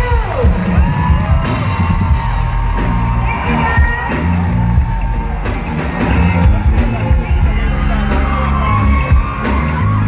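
Live R&B concert music played by a band through a stage PA, with a heavy bass beat and voices yelling and whooping over it.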